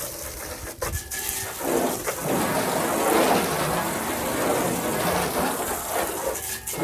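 Water from a hose spraying onto a truck's body as it is rinsed off: a steady splashing hiss that grows louder about two seconds in.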